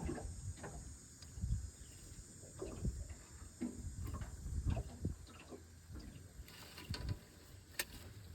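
Irregular low bumps and rustles with a few sharp clicks, close to the phone's microphone: handling noise while a tangled fishing line is being worked loose.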